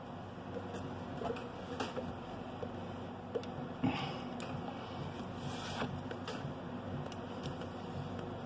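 Soft breathy puffs of a person drawing on a pipe, with a few small clicks, the sharpest about four seconds in, over a steady low hum.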